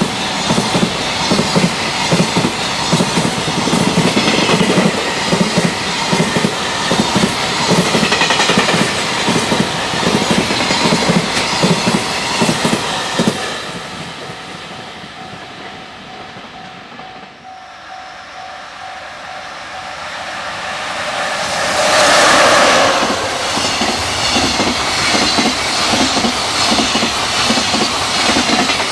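Freight trains passing at speed. Loaded wagons clatter rhythmically over the rail joints, and the sound fades away about 13 s in. A second train then approaches, its electric locomotive passes loudly about 22 s in, and its wagons go clattering over the joints behind it.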